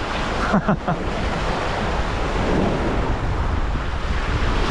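Sea surf washing onto a beach, mixed with wind buffeting the microphone. A few brief faint voice sounds come about half a second in.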